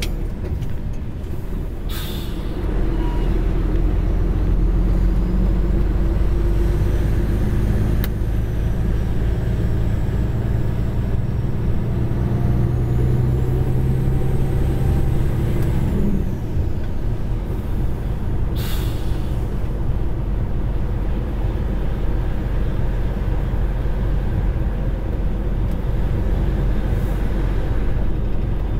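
Heavy vehicle's engine heard from its cab while driving, pitch climbing as it pulls and then dropping sharply at a gear change about 16 seconds in. Two short hisses of compressed air, about 2 seconds in and again about 19 seconds in.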